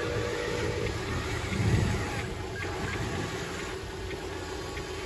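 Radio-controlled toy wheel loader's electric motors and gears whining as it drives and works the dirt with its bucket, with a brief louder low rumble about a second and a half in.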